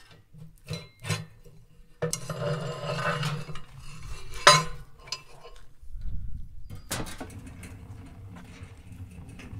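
Metal clinks and knocks of a large aluminium cooking pot being handled at a metal wood stove, with a loud sharp clank about four and a half seconds in.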